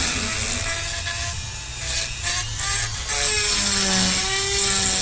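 Dremel rotary tool grinding into the hard steel of a seat bracket to enlarge a bolt hole: a loud, gritty hiss with a whine whose pitch wavers under load.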